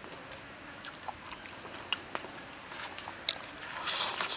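A person eating stir-fried squid, with wet chewing and smacking clicks at the mouth. Near the end comes a louder slurp as a piece is sucked off the chopsticks.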